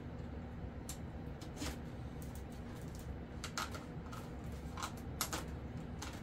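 Scattered light clicks and scrapes of a small hex driver working a machine screw in the foam glider's tail fittings, with a few sharper clicks in the second half, over a steady low hum.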